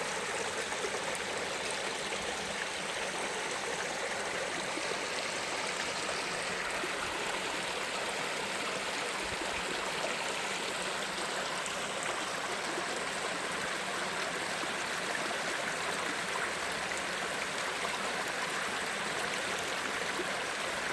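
Mountain stream flowing over rocks, a steady rushing of water.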